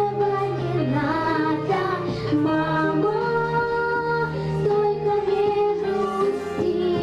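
A girl singing into a handheld microphone over instrumental accompaniment, with some long held notes.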